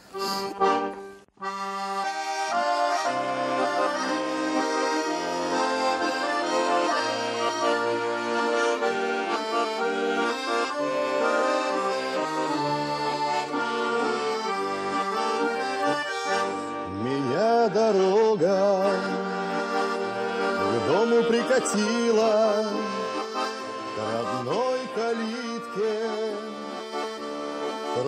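Russian garmon (button accordion) playing a slow lyrical folk-song introduction, sustained chords over a stepping bass, starting about a second and a half in. In the second half a man's voice comes in singing over it.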